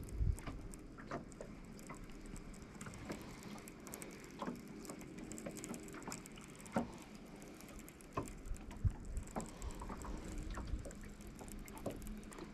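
Small waves lapping against a boat hull in light, irregular taps and ticks, over a faint steady hum.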